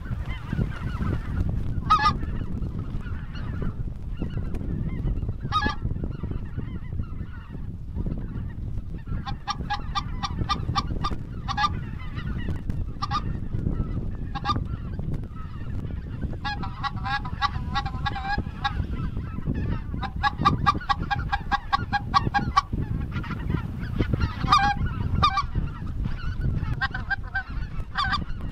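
A large flock of geese calling overhead: many short honks overlapping, thickening into spells of rapid chattering calls now and then, over a steady low rumble of wind noise.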